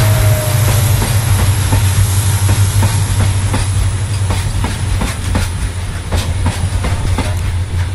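Loaded coal freight wagons rolling past, their wheels clacking over the rail joints about twice a second over a steady low rumble.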